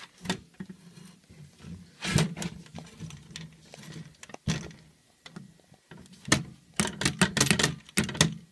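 Irregular knocks and clatters of objects being handled, with more of them in the second half, over a faint steady low hum.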